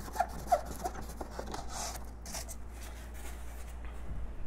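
Rigid foam-board panel squeaking and rubbing as it is worked loose from the incubator cabinet, with a few short squeaks in the first second and a half and then a faint rustle, over a steady low hum.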